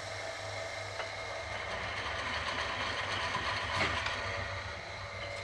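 Selig Sonnenthal lathe running on a replacement half-horsepower electric motor through its belt drive: a steady low motor hum with light mechanical clatter, while hand pressure is put on it to slow it down as a load test. A single tick sounds about a second in.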